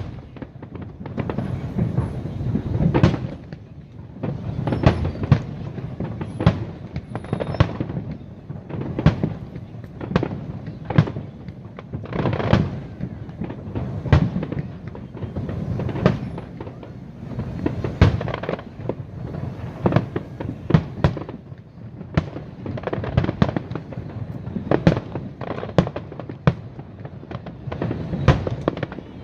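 Aerial fireworks display: an irregular run of sharp bangs, one to three a second, over a continuous low rumble.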